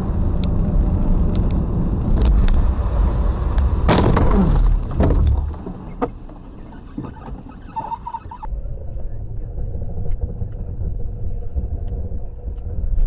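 Dashcam audio from inside cars driving on snowy, slushy roads: a steady low road and engine rumble, with a louder noisy burst about four seconds in. The sound changes abruptly near the middle as one clip cuts to another.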